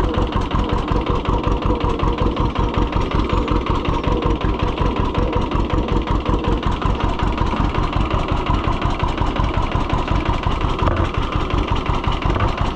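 Two-cylinder John Deere tractor engine running steadily, with the even, pulsing exhaust beat of its two cylinders.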